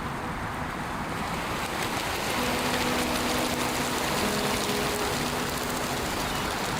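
Steady rushing and washing of lake water, with a faint low hum from about a third of the way in until near the end.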